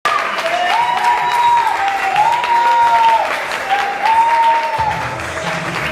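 Crowd clapping and cheering in a large hall, with three long held tones, each stepping up in pitch, sounding over the noise one after another.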